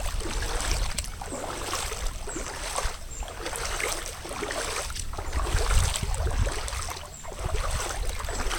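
Boots sloshing and swishing through shallow floodwater and wet, flattened plants, a splashing swish about every second or two with a low rumble beneath.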